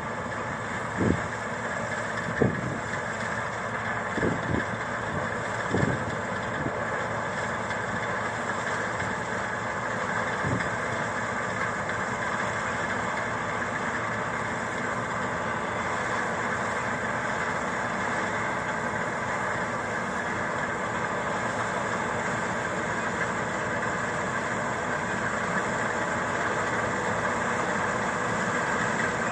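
Combine harvester running steadily at working speed, an even mechanical drone. A few sharp knocks come in the first six seconds, with one more about ten seconds in.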